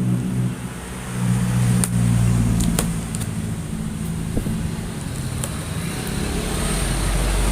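Steady low hum of a motor vehicle engine running close by, with a few light, sharp clicks of a cardboard box being handled.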